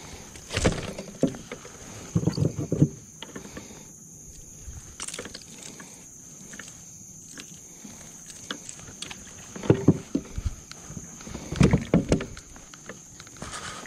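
Knocks and thumps against a plastic fishing kayak's hull and gear as a landed fish and tackle are handled aboard, in four short clusters. A steady faint high-pitched tone runs underneath.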